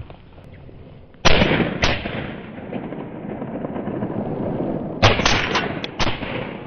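Shotgun shots: two about half a second apart, then a quick volley of several more about four seconds later, each trailing off in a long echo.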